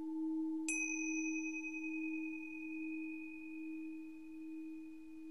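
Steady low ringing tone with a gentle swell, joined just under a second in by a single struck high chime that rings on and slowly fades.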